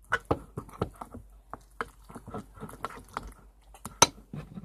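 Cornstarch slime mixture being stirred in a bowl: irregular wet squishes and small clicks, with one sharp knock about four seconds in.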